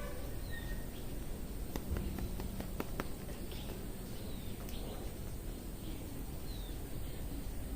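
Steady outdoor background noise with small birds chirping faintly now and then, and a few sharp clicks about two to three seconds in.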